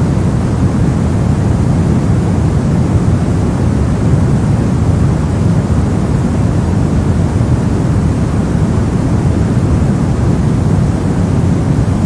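Steady sleep-aid 'soft white noise': an even, continuous hiss weighted toward the low end, so it sounds deep and muffled rather than bright, with no changes or events.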